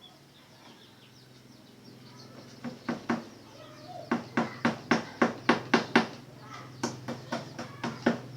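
Red junglefowl clucking in quick series of short, sharp clucks: two, then a fast run of about eight, then five more near the end. A faint steady low hum sits beneath.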